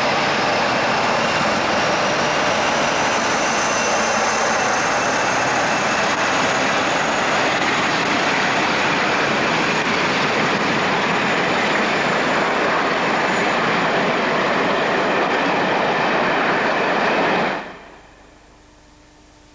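British Rail Class 47 diesel locomotives' Sulzer twin-bank twelve-cylinder engines working hard as the train pulls away, a steady loud drone with a faint high whistle rising slowly in pitch. The sound cuts off sharply near the end, leaving only a faint hiss and a low hum.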